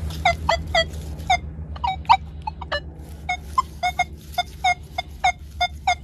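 Nokta Legend metal detector giving a run of short, identical target beeps, about three or four a second, as the search coil is swept back and forth over a buried target.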